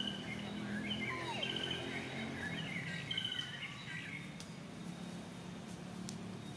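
Birds chirping, many short high calls overlapping for about the first four seconds and then thinning out, over a low steady hum.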